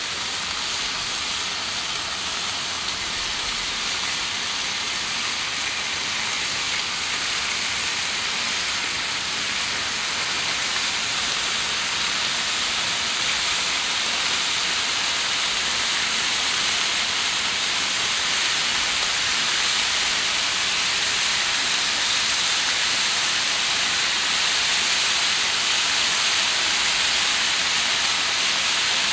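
Raw bacon strips sizzling on the hot steel plate of a Blackstone propane griddle: a steady frying hiss that grows gradually louder as more strips are laid down.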